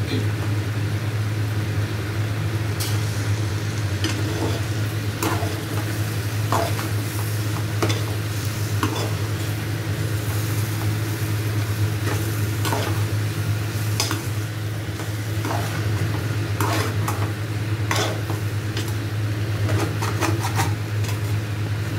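A metal spoon stirring and scraping a thick tomato and raw-banana curry in a metal pot, with irregular clinks and scrapes of spoon on metal and the curry sizzling. A steady low hum runs underneath.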